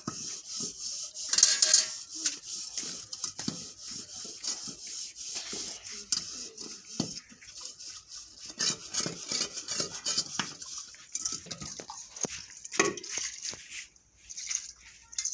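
Metal cooking pots being washed by hand: scrubbing and rubbing inside them, with clinks and knocks as they are handled and set down. A louder clatter comes about a second and a half in, and another sharp knock near the end.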